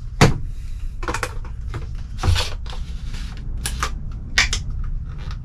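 Plastic tub of pre-workout powder being handled on a wooden table: its screw lid is worked off and on, with scattered clicks and plastic rustles and two knocks, one just after the start and one after about two seconds. A steady low hum runs underneath.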